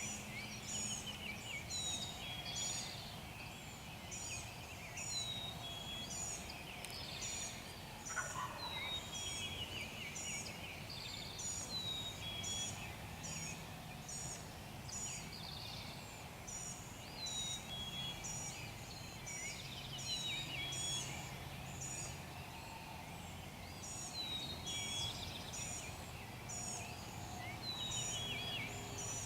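Wild turkey gobbling several times, over many small birds calling high and repeatedly.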